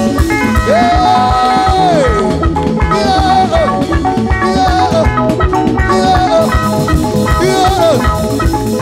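Live band music: electric guitars over a drum kit playing a steady dance beat, with a lead note held and bent in the first couple of seconds.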